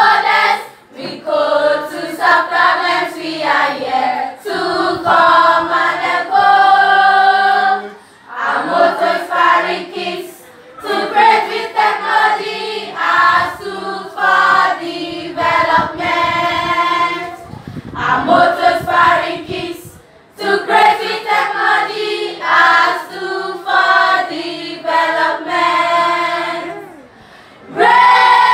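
A group of schoolgirls singing an anthem together as a choir, in sung phrases with short breaks between them.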